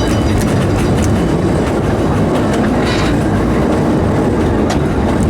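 Narrow-gauge steam train running along the track, with a steady rumble and the clickety-clack of its wheels over the rail joints. A short hiss comes about three seconds in.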